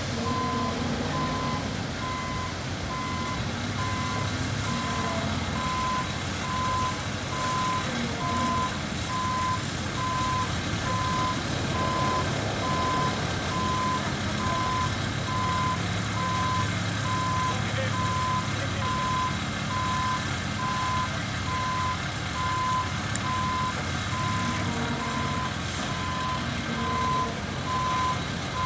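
Backup alarm of a heavy vehicle beeping at an even rate on one steady pitch, over the steady rumble of a diesel engine.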